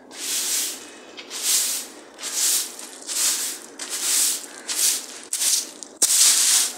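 A stiff stick broom sweeping scattered pigeon grain across a concrete floor: about eight scratchy, hissing strokes, roughly one a second, coming a little faster after the middle.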